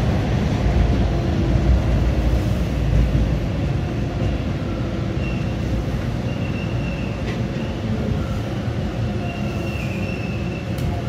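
Toronto subway train on TTC Line 2, heard from inside the car as it slows into a station. A heavy low rumble eases off, and thin, high wheel squeals come and go from about halfway, rising in pitch near the end.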